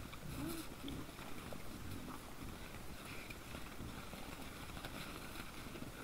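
Wild boars grunting low while feeding, a few short grunts in the first second over a steady hiss.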